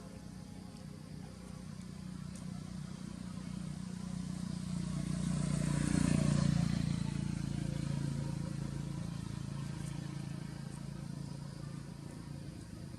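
A motor vehicle passing by: its engine and road noise grow louder to a peak about six seconds in, then fade away.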